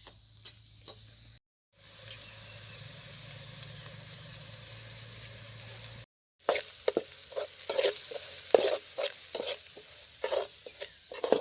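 Vegetables frying in a kadai, with a metal ladle stirring and knocking against the pan from about halfway through, over a steady high chirring of crickets. The sound drops out briefly twice.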